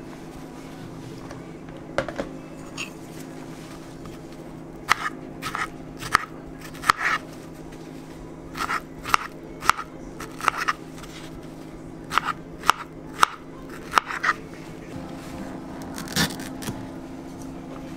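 Kitchen knife slicing strawberries on a plastic cutting board: irregular sharp taps as the blade goes through the fruit and strikes the board, several in quick groups. A steady low hum runs underneath.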